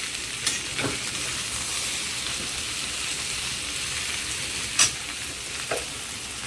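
Boiled potatoes with onion and spices sizzling steadily in hot oil in a pan, stirred and turned with a spatula that clicks against the pan a few times.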